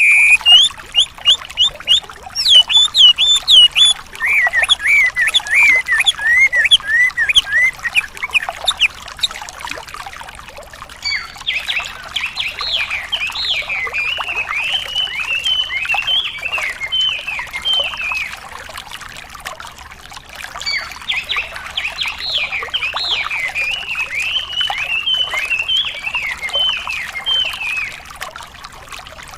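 Wambi bird song: fast runs of sharp, repeated chirps in phrases of several seconds, over a steady trickle of running water, as played in a masteran recording for training songbirds.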